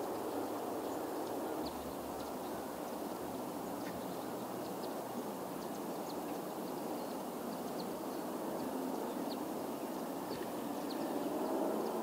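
Steady rushing outdoor background noise with many faint, short high chirps scattered through it. A faint pitched sound comes in near the end.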